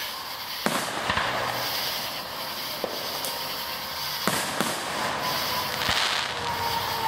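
Aerial fireworks shells bursting overhead: about half a dozen sharp bangs spaced a second or so apart, over continuous crackling.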